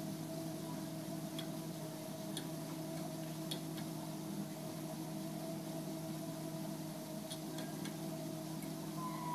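Treadmill running: a steady motor hum with faint light ticks every second or so.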